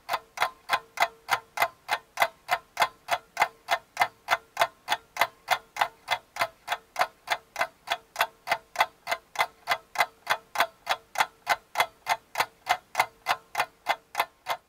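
Clock ticking sound effect: a steady, fast run of sharp ticks, about four a second, over a faint steady low tone that stops near the end.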